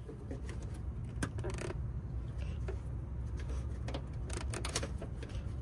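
Light clicks and rustles of a wheel speed sensor's plastic wiring connector and cable being handled, a few sharp clicks scattered through, over a steady low rumble.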